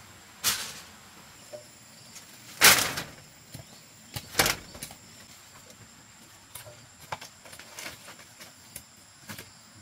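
Split bamboo slats and poles clattering as they are handled and gathered: three rattling clatters, the loudest about two and a half seconds in, followed by lighter knocks. A faint steady high insect drone runs underneath.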